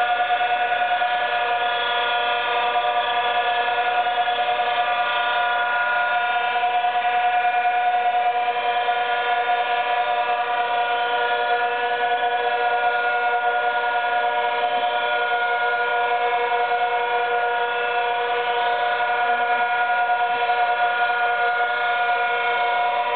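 Milling machine cutting a Blackwood surface, with a cordless drill driving the table's power feed: a steady, unchanging whine made of several high tones, held through a long, even cut.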